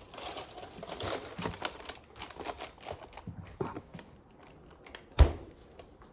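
Irregular clicks, taps and rustles of a boxed frozen quesadilla and its packaging being handled, with one sharp, loud thump about five seconds in.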